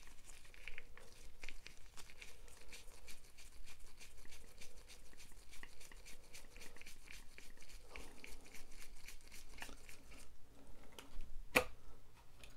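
Screwdriver backing a tight small screw out of a plastic display base, giving a rapid, even run of fine clicks, about six a second, that stops around ten seconds in. One sharper click follows near the end.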